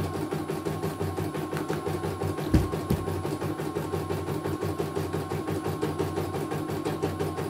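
CNY computerised embroidery machine stitching a design: the needle working in a fast, even rhythm of about ten strokes a second, with one sharp knock about two and a half seconds in.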